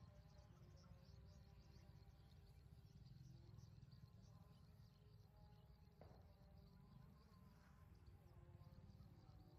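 Near silence: faint outdoor ambience with insects chirping and buzzing over a low steady rumble, and a single faint tick about six seconds in.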